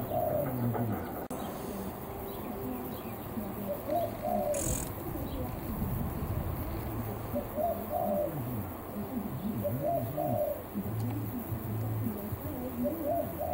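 A bird cooing: a short, low call repeated five times, about every three seconds.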